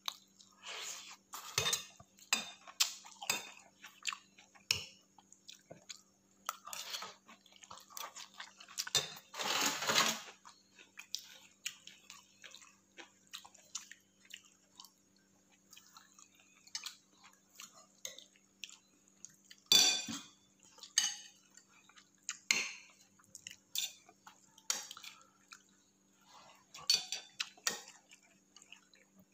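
Metal spoon clinking and scraping against a ceramic plate and soup bowl while eating rice and soup, in short irregular knocks. There is a longer scrape about ten seconds in and the sharpest clink about twenty seconds in.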